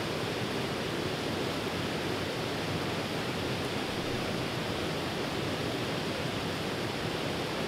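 Steady rush of a small river's flowing water, an even hiss with no change.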